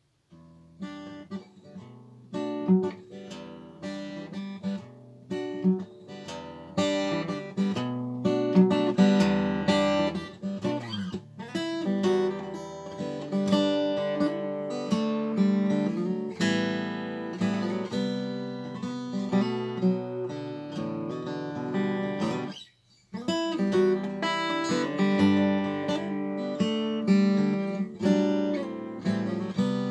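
Solo acoustic guitar playing a tune, starting softly and growing louder, with a brief break about three quarters of the way through.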